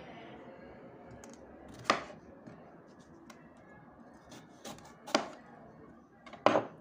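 Kitchen knife chopping down through a bitter melon onto a wooden cutting board: three sharp knocks a few seconds apart, with a lighter tap just before the second.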